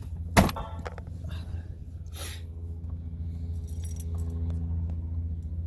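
Car engine idling steadily, with a sharp click about half a second in and a short rustle about two seconds in.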